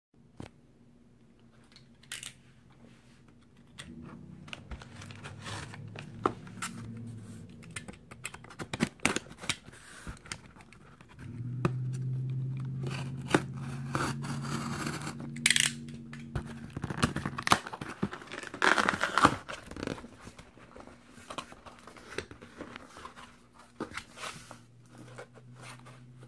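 Cardboard shipping box being opened by hand: a snap-off utility knife slicing packing tape, tape tearing, and cardboard flaps scraping and rustling, with scattered clicks and knocks. A low steady hum runs underneath, strongest in the middle.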